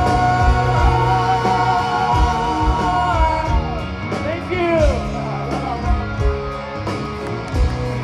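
Live rock band playing a power ballad with a sung vocal, electric guitar, bass and drums. The singing holds one long note for about three seconds, then falls away.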